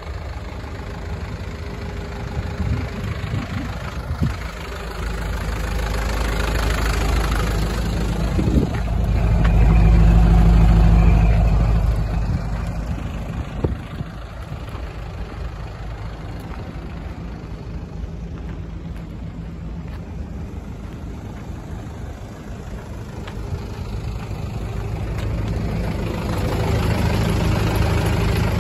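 Mitsubishi Canter's 4D34 four-cylinder diesel engine idling steadily. It grows louder for a few seconds about ten seconds in and again near the end.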